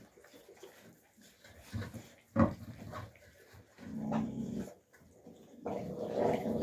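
Alabai (Central Asian Shepherd) puppies squabbling over a food bowl: one sharp snap about two and a half seconds in, then two bouts of growling, the second near the end.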